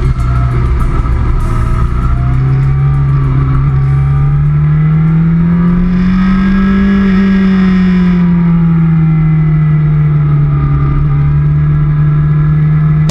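Motorcycle engine heard from an onboard camera, running steadily through a long corner, its pitch rising gradually to a peak about halfway through and easing back down.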